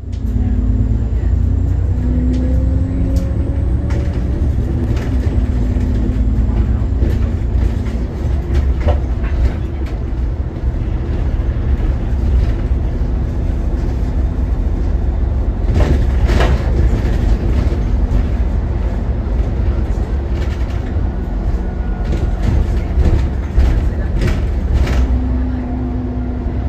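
Alexander Dennis Enviro400 double-decker bus under way, heard from inside: a steady low engine and road rumble with a faint hum that rises in pitch two to four seconds in. Scattered knocks and rattles, the loudest about sixteen seconds in.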